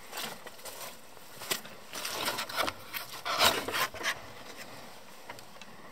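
Wooden plank door scraping and rubbing against its frame as it is pushed open, in a few rough, uneven strokes, loudest about three and a half seconds in.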